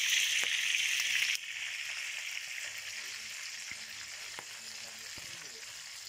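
Chicken pieces deep-frying in hot oil in a wok, a steady sizzle with a few small pops; it is a first, half-cooking fry. About a second in the sizzle turns abruptly quieter.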